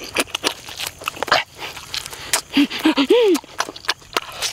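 Close-up mouth sounds of eating roast chicken: wet smacking and chewing clicks, with a few short hummed 'mm' sounds a little past halfway.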